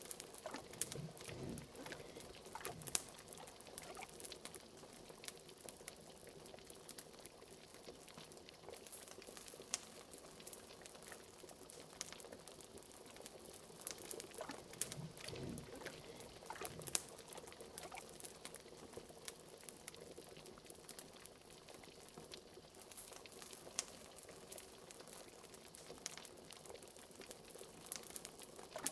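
Liquid bubbling at a steady simmer, with a couple of deep bloops, about a second in and again midway, over a fire crackling with many small snaps.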